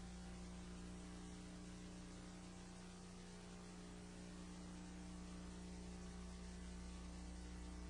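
Faint, steady electrical mains hum with a low buzz and an even hiss, unchanging throughout.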